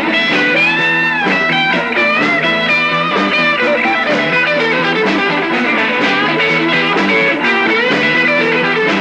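Instrumental break of a rock song: an electric guitar plays a lead line with bent, gliding notes over the band.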